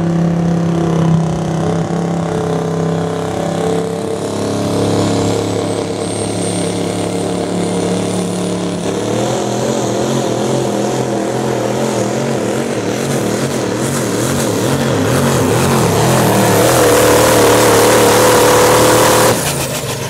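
Turbocharged diesel pickup engine running under full load while pulling a sled, with a high whistle rising in pitch a few seconds in. The engine grows louder near the end, then drops off abruptly as the pull ends.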